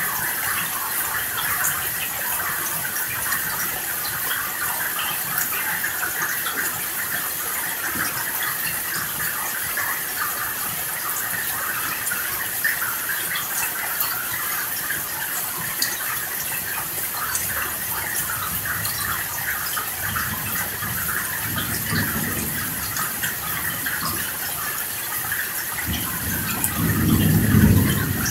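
Steady rain, with a low rumble of thunder about twenty seconds in and a louder roll of thunder near the end.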